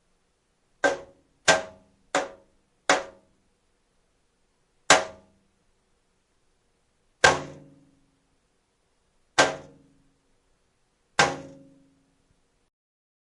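Dull metallic clangs: eight separate strikes, each ringing briefly and dying away. The first four come in quick succession, about two-thirds of a second apart, and the last four are spaced about two seconds apart.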